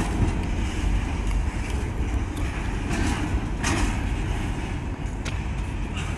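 Freight train's covered hopper cars rolling away on the rails: a steady low rumble of wheels on track, with a few sharp clicks from the wheels and rail joints.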